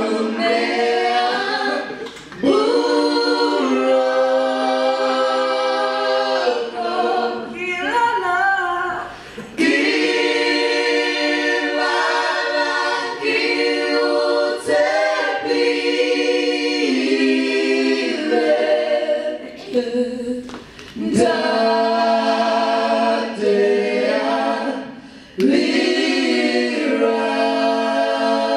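Church praise team of several voices singing a cappella in harmony, holding long chords in phrases with short breaks between them.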